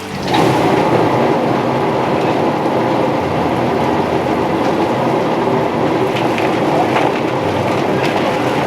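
Motor-driven drum chicken plucker starting up about a quarter second in, then running steadily with a loud rattling churn as a scalded bird tumbles against the rubber fingers.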